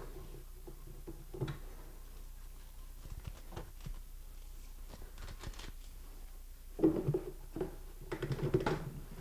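PVC pipes and tee fittings being handled and pushed together: scattered light plastic clicks and taps, with louder rubbing and knocking about seven seconds in and again near the end.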